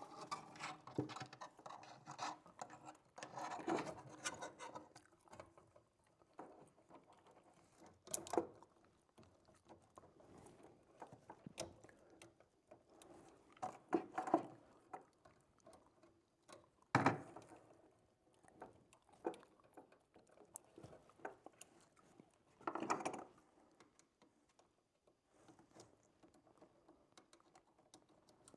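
Scattered small clicks, taps and rustles of hand tools and wire being handled while an electrical outlet is wired, with a few sharper knocks now and then.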